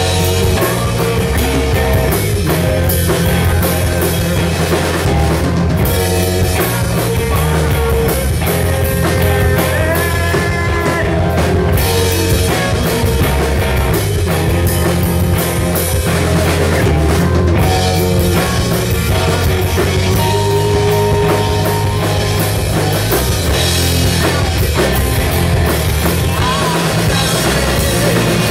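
Live rock band playing: electric guitars through amplifiers, electric bass and a full drum kit, loud and continuous.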